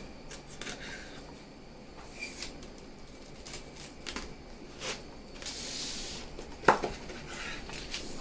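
A knife and other utensils working on a crisp, toasted quesadilla: scattered crunches, scrapes and clinks on a plate or board, with one sharp knock about two thirds of the way through.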